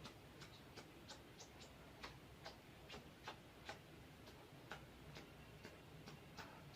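Near silence with faint, sharp clicks at uneven spacing, about two a second, over a low steady hum.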